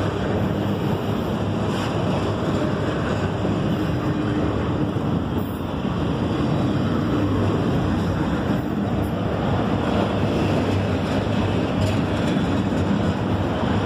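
Autorack freight cars rolling past: a steady rumbling noise of steel wheels on rail, with a few faint knocks.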